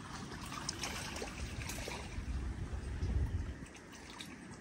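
Shallow water lapping and trickling among mangrove roots, with scattered small splashes in the first couple of seconds and a low rumble a little past the middle.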